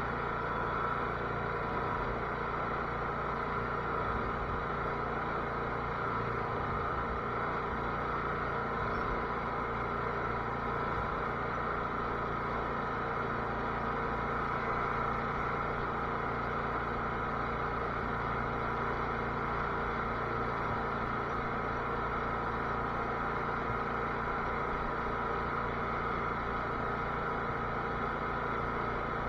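Cub Cadet garden tractor's engine running at a steady speed, with no change in pitch or level.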